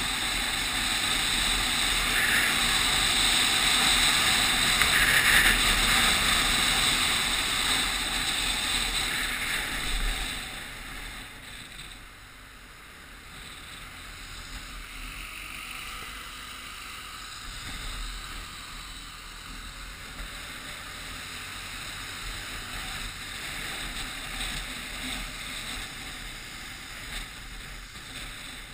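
Wind rushing over the microphone of a camera on a moving two-wheeler, with road noise: loud while riding at speed, then dropping noticeably about ten seconds in as the ride slows.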